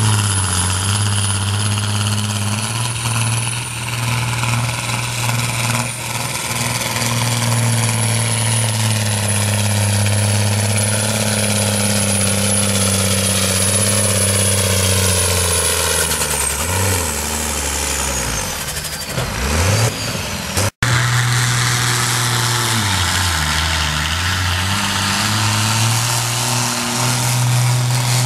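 Ford 8700 tractor's diesel engine pulling a sled under heavy load, running steadily with a high whine above it; its revs sag and fall away about 16 to 20 seconds in. After an abrupt cut about 21 seconds in, another tractor's diesel pulls, its revs dipping briefly and then climbing again.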